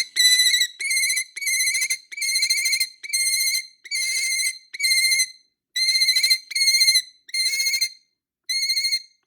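A high, warbling trill like a telephone ringtone, sounding in short rings over and over, about one and a half a second, with a slightly longer gap near the end.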